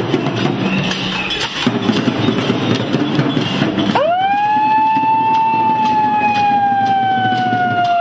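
A dense noisy din, then about halfway through a hand-held megaphone's siren sounds: one long tone that sweeps up sharply and then slides slowly down in pitch for about four seconds.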